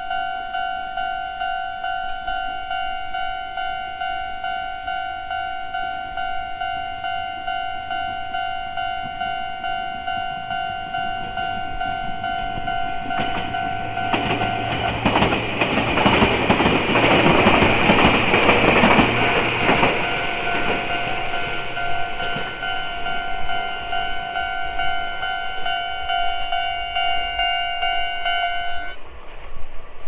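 Japanese level-crossing warning bell dinging in a steady repeated pattern while a commuter train runs through the crossing. The train's wheel and running noise swells up in the middle and fades away, and the bell stops about a second before the end.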